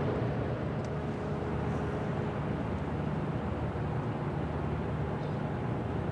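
Steady low drone of ship engines, with a faint thin whine over it that fades out about two seconds in.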